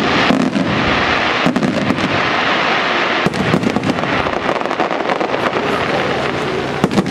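Aerial fireworks shells bursting in quick succession, a dense, unbroken run of bangs and crackling stars.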